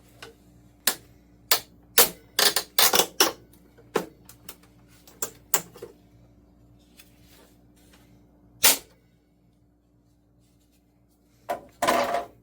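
Irregular sharp clicks and knocks of plastic and metal parts being pulled and handled inside a gutted CRT television. Near the end comes a longer crackling snap as a part breaks off.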